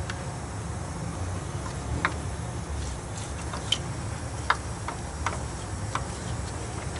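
Light metallic clicks and clinks of a timing chain and camshaft sprocket of a 5.3L LS V8 being worked off the camshaft by hand: about half a dozen scattered ticks, over a low steady rumble.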